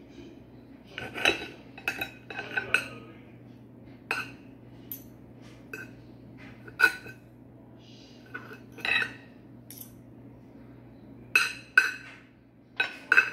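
Table knife and fork clinking and scraping on a plate while cutting boiled chicken breast into small pieces: irregular sharp clinks with a short ring, some in quick pairs, about one a second.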